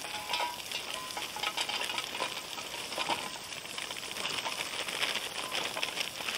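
Suet and fat sizzling in a small frying pan over a campfire, a steady hiss full of fine crackles.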